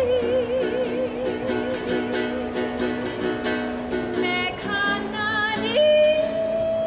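A woman singing to her own strummed E.L. Woodworks traditional tenor ukulele. She holds a long note with wide vibrato, sings a few shorter notes, then slides up near the end into a long steady note.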